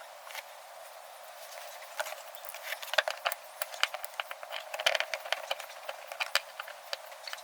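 Irregular clicks and knocks of hard parts and tools being handled, as a pull-start recoil starter is put back together. The knocks start about two seconds in and come thickest in the middle.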